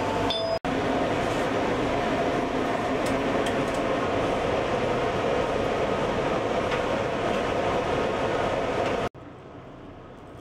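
Steady rumbling noise of a moving vehicle. About nine seconds in it cuts to a much quieter steady hum.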